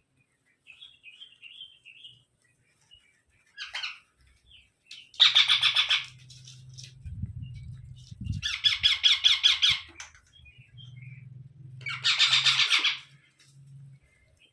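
Rose-ringed parakeets calling: soft chirps at first, then three loud bursts of rapid, harsh squawks, each about a second long and spaced a few seconds apart.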